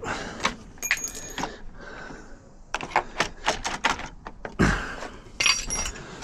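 Irregular metallic clicks and rattles from a jammed UPVC door lock mechanism being worked. A duller knock comes about two thirds of the way through, and a couple of short ringing metal taps follow near the end.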